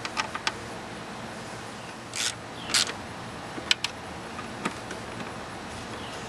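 Scattered light metal clicks and two short scraping rustles, about two and three seconds in, from bolts being set and started by hand on the engine computer's mount in the engine bay.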